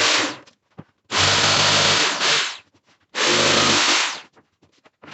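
A power tool running in short bursts, each a steady motor note with a loud hiss over it. One burst stops about half a second in, and two more follow, each lasting a little over a second.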